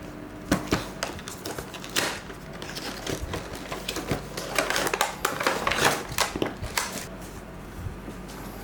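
Packaging being handled and opened by hand: a rapid run of crinkling, rustling and clicks that thins out near the end.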